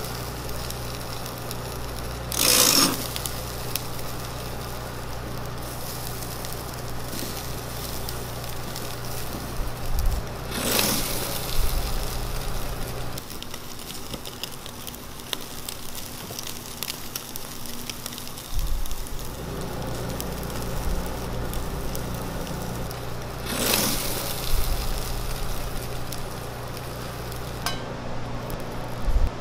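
Charcoal-grilled chicken (dakgalbi) sizzling on a wire grate over glowing charcoal, with three brief, louder hisses spread through, over a steady low hum.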